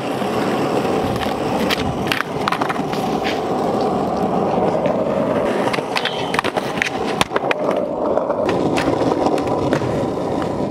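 Skateboard wheels rolling on smooth concrete with a steady rumble, broken by sharp clacks. Near the middle the board slides along a low metal flat rail and comes back down onto the ground.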